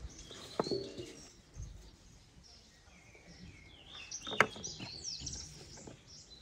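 Songbirds chirping with short gliding whistles, mostly in the second half. There are two sharp knocks, about half a second in and a louder one after four seconds, the first with a brief metallic ring, as raw chickens are handled in a stainless steel bowl.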